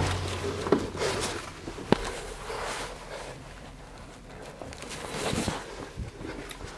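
Footsteps and the rustle of clothing and camera handling while walking through empty backstage rooms, with a couple of sharp knocks.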